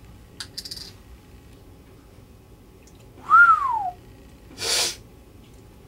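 A man's single short whistle, rising then falling in pitch. A short breathy rush of air follows about a second later, and a few light clicks come about half a second in.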